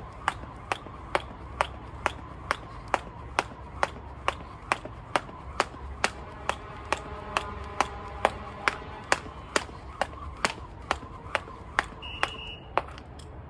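Jump rope skipping: the rope strikes the ground in a steady rhythm, a little over two slaps a second.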